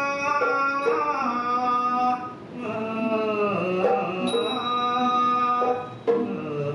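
Thai classical song with a piphat mai khaeng ensemble: a voice holds long notes that bend and glide. A sharp strike comes twice, about three and a half seconds apart.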